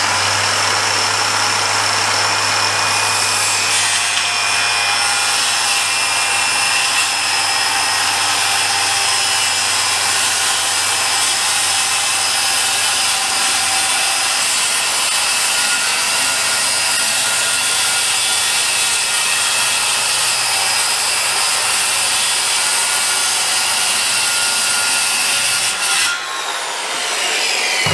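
Circular saw, blade set half an inch deep, running steadily through a long cut in a plywood sheet. Near the end the cut finishes and the motor's whine falls as the blade spins down.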